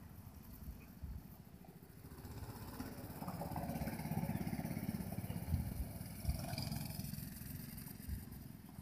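Go-kart's small engine running as the kart drives past, growing louder to a peak near the middle and fading as it moves away.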